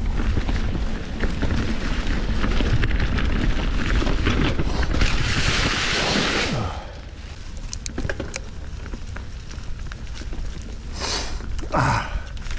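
Polygon D6 mountain bike ridden on a dirt trail: a heavy rumble of wind and tyres on the camera microphone for the first six seconds or so, then quieter riding with scattered clicks and rattles and a short falling sound near the end.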